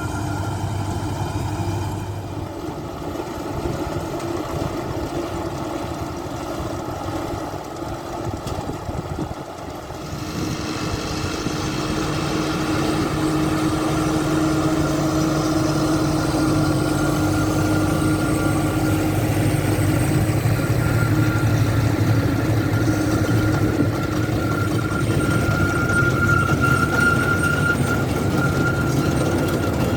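Farm tractor engine running steadily with a steady whine from the machinery. It grows louder about a third of the way in.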